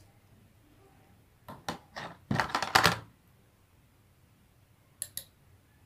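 Small metal objects clicking and tapping: a magnet knocking against a pair of small scissors and the tabletop as it picks them up. A few separate clicks, then a quick rattle of clicks about two and a half seconds in, and two light clicks near the end.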